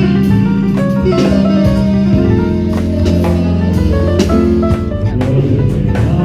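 Music with guitar and a drum kit, keeping a steady beat.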